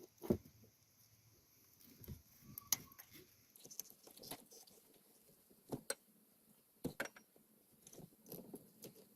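Faint, scattered small clicks, taps and light rattles of parts and tools being handled during an ATV starter solenoid replacement, with a few sharper clicks spaced irregularly through it.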